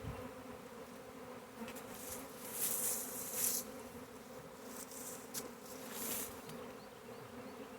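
Honey bee swarm buzzing, a steady low hum from many bees in the air. Leafy rustling of branches being pushed aside comes in twice, about two to three and a half seconds in and again around five to six seconds.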